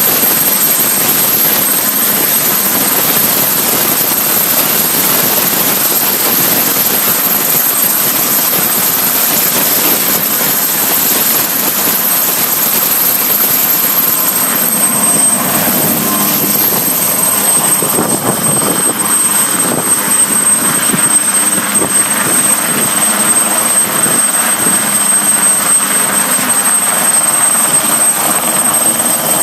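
Ultralight helicopter running: a loud, steady rush of rotor and engine noise, with a faint hum of engine tones showing in the second half.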